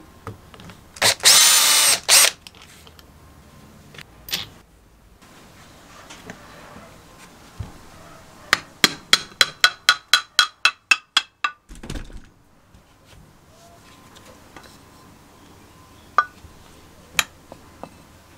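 A cordless drill-driver runs for about a second, spinning a nut off the crankshaft of a Robin EC10 two-stroke engine. A few seconds later a hammer strikes the crankshaft end about fifteen times in quick succession, roughly five blows a second, with a metallic ring, knocking the crankcase halves apart. Two single knocks follow near the end.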